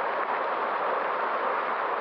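River water rushing steadily, an even hiss of running water with no distinct splashes.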